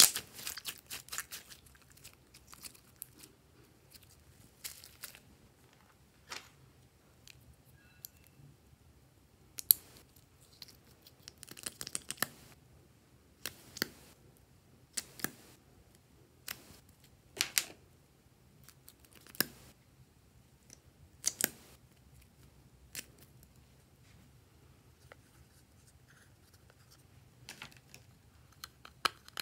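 Sharp clicks and snaps, scattered and sometimes in quick runs, from hands working slime and small plastic cosmetic containers. There is a fast run of them in the first second or so as the slime is squeezed.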